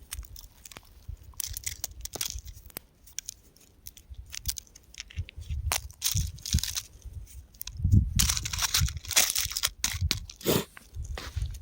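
Rock and gravel crunching and crumbling, with irregular cracks and grinding crunches that get heavier and more frequent about eight seconds in.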